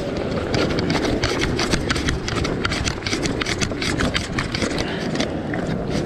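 Footsteps on bare rock, with a quick, uneven clatter of clicks and scrapes as they land. Wind rumbles on the microphone underneath.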